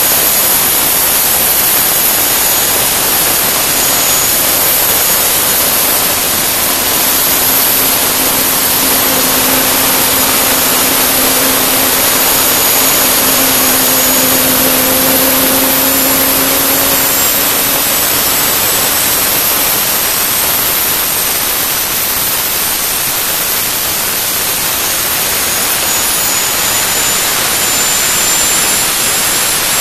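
Turbomeca Astazou 3N2 gas turbine running on a test bench: a loud, steady rush with a high whine over it. The whine rises slightly in pitch over the last third.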